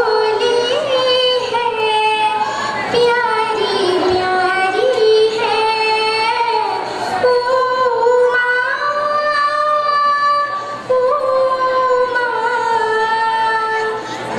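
A young girl singing solo through a handheld stage microphone, with long held notes that bend up and down.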